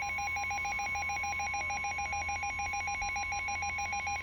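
Emergency Alert System two-tone attention signal: two steady high tones sounding together, with a rapid pulsing flutter of about ten beats a second, marking the start of a new severe weather warning.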